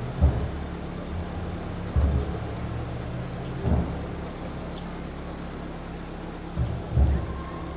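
Strong wind buffeting the microphone over a steady low hum, with dull low thuds every two seconds or so.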